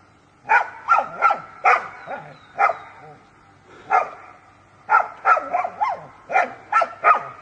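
A dog barking repeatedly: about a dozen short, sharp barks in runs of two to four, with pauses between the runs.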